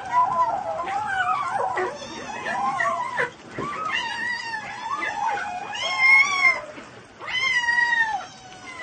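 A cat meowing and yowling in a string of long, drawn-out, wavering calls, with short breaks about a third and about three quarters of the way through.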